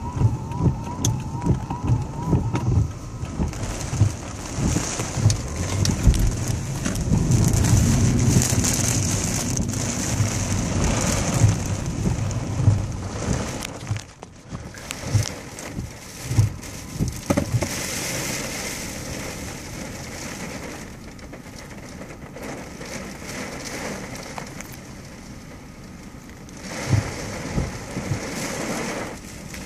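Heavy rain pelting a car's roof and windshield, heard from inside the car, with scattered sharp knocks. The downpour is loudest in the first half and drops to a quieter steady rush about halfway through.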